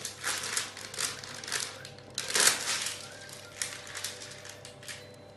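A spatula pressing and scraping chocolate cookie dough against baking paper on a metal baking tray: irregular crinkling, scraping strokes, the loudest about two and a half seconds in.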